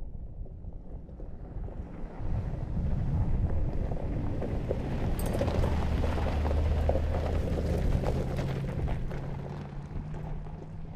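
Mercedes-AMG G 63's 4.0-litre twin-turbo V8 running under load on a gravel track, its note rising slowly in the second half, with gravel crackling under the tyres. The sound is louder through the middle and eases near the end.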